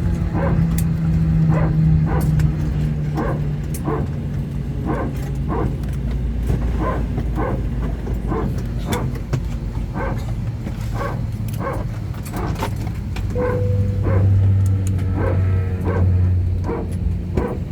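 A dog barking over and over from the cargo hold, heard inside the cabin of an Airbus A320, about one to two short barks a second over the aircraft's steady low hum.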